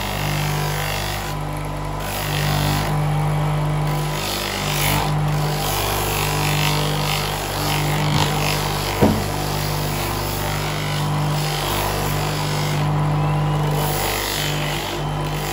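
Electric bench polishing motor running with a steady hum while an aluminium motorcycle footstep is pressed against its spinning polishing wheel, giving a rough scraping hiss that swells and fades as the part is worked. A sharp knock sounds about nine seconds in.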